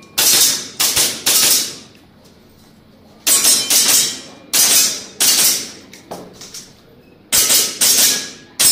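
Airsoft pistol shots fired in quick pairs and triplets, about ten sharp cracks in all, each with a short ringing tail. There is a pause of about a second after the first few shots.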